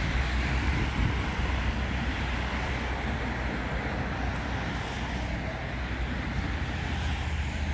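City street ambience: a steady wash of traffic noise with a low rumble of wind on the microphone.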